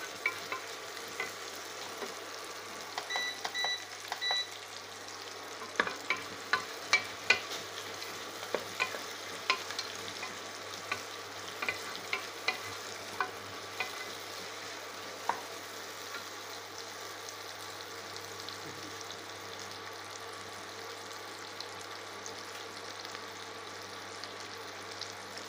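Sliced shallots sizzling in hot oil in an aluminium pressure cooker. A wooden spatula knocks and scrapes against the pot while stirring through the first half, then only the steady sizzle remains. A quick run of short high beeps about three seconds in.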